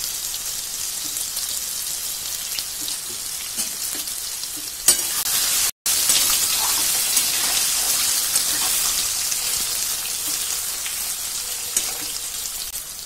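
Small whole new potatoes shallow-frying in hot oil in an aluminium kadai, a steady sizzle, with a metal spatula turning them now and then. The sound cuts out for an instant just before six seconds in, then the sizzle returns slightly louder.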